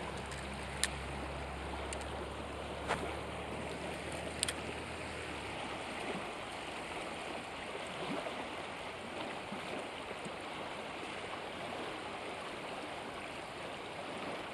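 Fast river current rushing steadily over a shallow riffle. A few light clicks stand out in the first few seconds.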